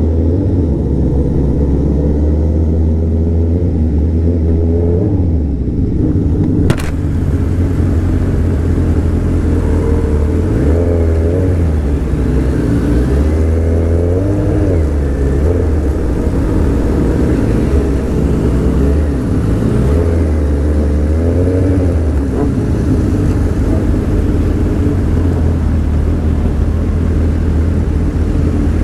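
Motorcycle engine running on the move, its pitch rising and falling several times as the revs change. A single sharp click about seven seconds in.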